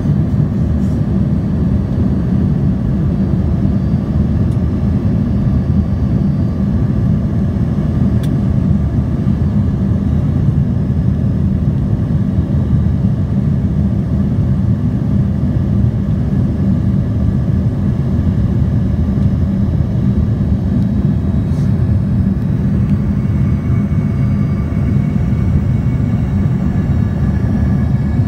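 Steady low roar of an airliner in flight, engine and airflow noise heard inside the passenger cabin.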